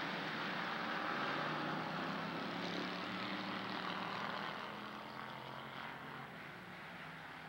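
A pack of hobby stock race cars running together around the track, their engines droning as one. The sound is loudest about a second in and fades from about halfway as the field moves away.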